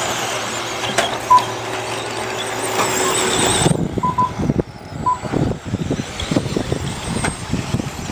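1/10-scale RC stadium trucks racing on a dirt track: a high-pitched, wavering motor whine, with a few short electronic beeps. About three and a half seconds in, the high whine drops away, leaving irregular low knocks and rumble.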